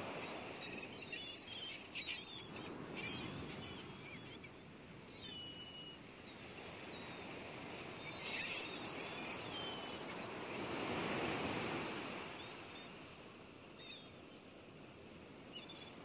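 Sea waves washing in slow swells that rise and fall every few seconds, with short bird calls over them, several in the first half and another about eight seconds in: a seaside ambience.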